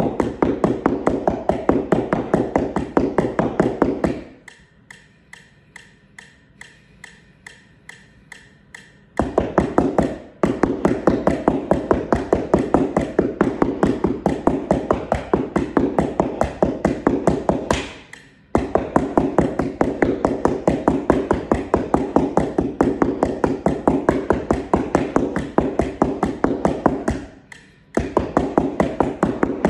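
Mallets striking a homemade cardboard practice keyboard in fast, even strokes. About four seconds in the playing stops for about five seconds, leaving only faint regular ticks, and it breaks off briefly three more times.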